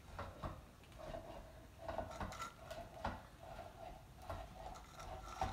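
Utensil clinking and scraping against a dish as canned wet cat food is stirred into dry food: irregular light clicks and knocks with bursts of scraping.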